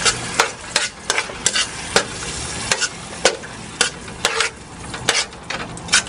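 A wooden spoon stirring and scraping through blended tomato and sautéed onions in an aluminium pot, in irregular strokes about twice a second, over the sizzle of the frying.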